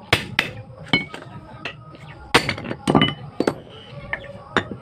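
Hammer blows on the steel of a truck propeller-shaft universal joint, part of changing the joint's cross: about eight irregular, sharp metal strikes, some with a brief ring, the hardest ones about two and a half to three seconds in.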